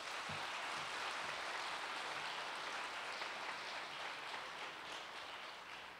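Audience applauding: a steady patter of many hands clapping that holds, then begins to fade near the end.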